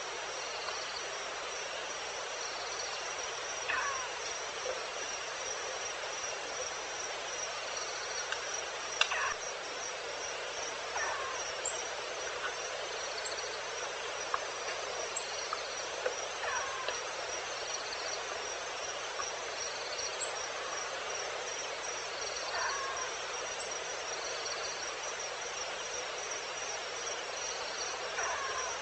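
Evening chorus of insects: a steady high, pulsing trill with a fainter repeated chirp every second or two, broken every few seconds by brief falling calls of some other animal.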